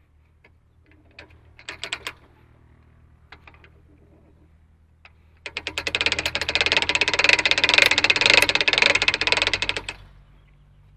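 A few scattered clicks, then a loud rapid mechanical clatter of fast, even ticks that starts about halfway through, lasts about four and a half seconds and stops suddenly, over a steady low hum.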